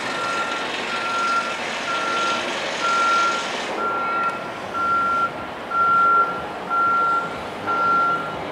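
Back-up alarm of a reversing vehicle, beeping one steady pitch about once a second in half-second beeps. A rushing noise underneath drops away about four seconds in.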